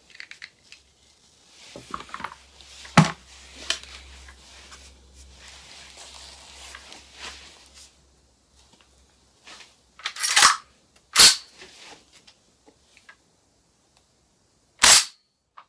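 Gas-powered airsoft M14: some clicks and a soft hiss, then two sharp shot-like pops about four and a half seconds apart, with a single sharp click between them.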